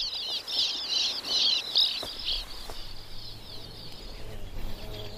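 A sand martin colony twittering: many short, overlapping chirps, thick for the first two and a half seconds and then sparser and fainter.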